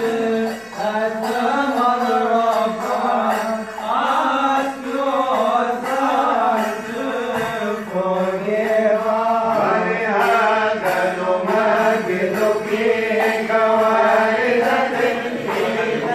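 Liturgical chanting of a Coptic Orthodox church hymn: a continuous sung melody with long held notes that bend gently up and down.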